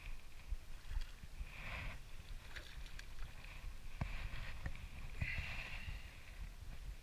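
Fishing reel being cranked in three short whirring bursts, with scattered clicks and a low rumble underneath, as a largemouth bass is reeled in and lifted from the water.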